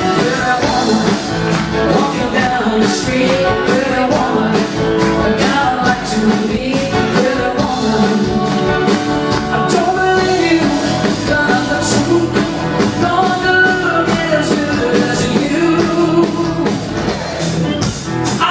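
Rock band music with singing over a steady drum beat.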